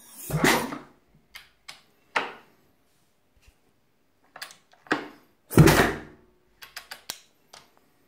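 Vintage Husqvarna 500 single being kicked over slowly: two heavy mechanical thunks about five seconds apart, with lighter clicks and knocks between and after.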